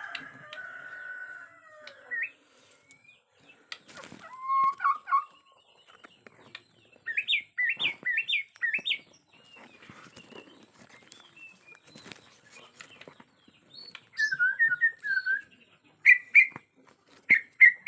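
Bornean white-rumped shama singing: separate whistled phrases with pauses between them, including a rapid run of rising notes and later a warbling phrase, with scattered clicks in between.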